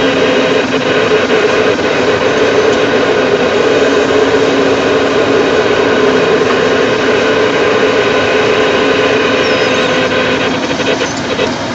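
Caterpillar 330 tracked excavator's diesel engine running loud and steady under load, with the drone of its hydraulics, as the bucket works at a heavy concrete block.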